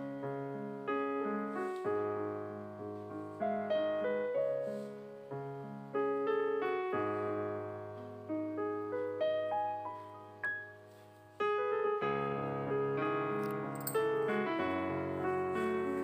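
Background piano music: a gentle melody over sustained chords, fading out briefly a little past the middle and then picking up again.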